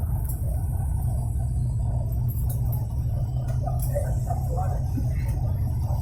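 Steady low rumble of a passenger aircraft's cabin on landing, with a few faint clinks.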